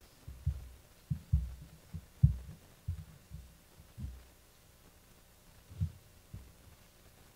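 Low, dull thumps at uneven intervals, about a dozen in all, the loudest a little past two seconds in.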